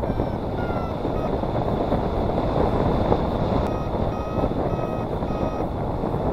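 Paragliding variometer beeping in short, evenly spaced pips. There are a few in the first second, then a pause, then a run of about two a second from the middle onward. In a variometer, this intermittent beeping is the climb tone, sounding as the glider rises. Steady wind rush on the microphone runs underneath.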